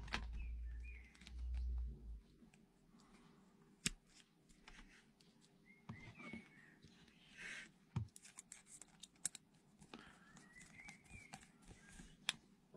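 Quiet handling of a screwdriver and a plastic UK plug top: scattered small clicks and taps as a terminal screw is done up, with a low rumble in the first two seconds.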